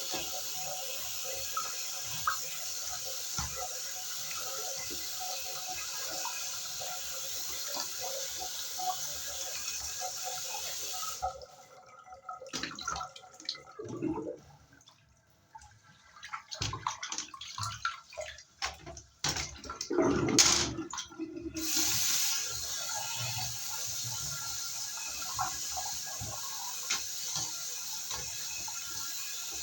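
Water spraying steadily onto a window-type air conditioner being washed, a constant hiss. About eleven seconds in the spray stops for roughly ten seconds, with scattered knocks and clatter, the loudest near the twenty-second mark, then the spray starts again.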